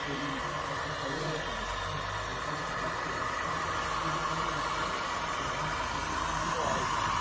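Radio-controlled scale construction machine running, a steady whine over a low hum. Its pitch slides up and it grows louder near the end.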